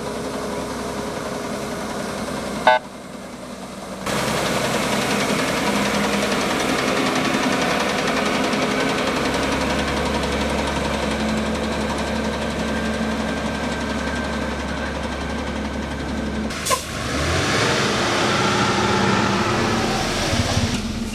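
Diesel engine of a water tanker truck running as it sprays water on a dirt road, with a steady hiss over the engine. The sound changes abruptly with a sharp click about three seconds in and again near the end, where heavy diesel road machinery runs.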